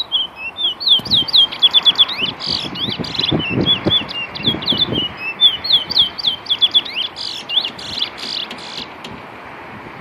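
Caged black songbird singing a fast, continuous warbling song of quick chirped and slurred whistle notes, stopping about nine seconds in.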